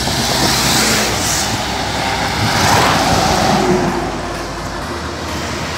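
Road traffic passing close by on a highway: motorcycles and a truck going past, their engine and tyre noise swelling and fading as each one passes.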